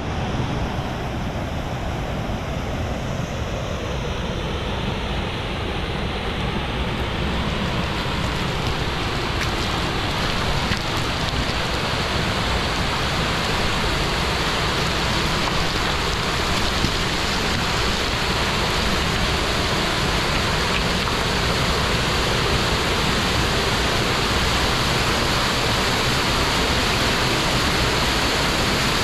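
Steady rush of falling water from a mountain stream cascade, growing a little louder over the first several seconds and then holding even.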